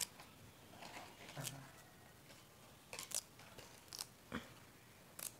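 Faint, scattered crisp snaps and rustles, about seven in all, of small things handled by hand: moringa leaves being stripped off their stalks, then a child fiddling with a small pink box.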